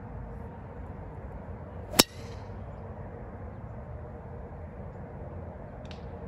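A golf club striking a teed-up ball on a tee shot: one sharp, ringing crack about two seconds in, over steady background noise.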